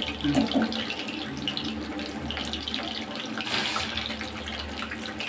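Batter-coated chicken pieces deep-frying in hot oil in a kadai, sizzling with a steady dense crackle of small pops.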